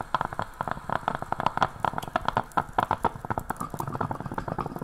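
Stovetop coffee pot boiling: a fast, irregular run of bubbling pops and gurgles as the coffee comes to the boil.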